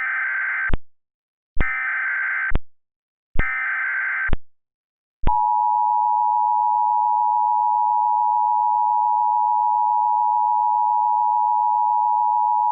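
Emergency Alert System tones: three short bursts of SAME header data, each a harsh digital warble about a second long, then the steady two-tone EAS attention signal starting about five seconds in. Together they mark the start of an emergency alert.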